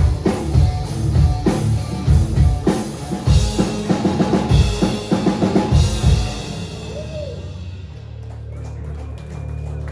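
Live rock band with heavy drum-kit hits, bass and guitar playing the close of a song. About six seconds in the drums stop and a low chord rings out.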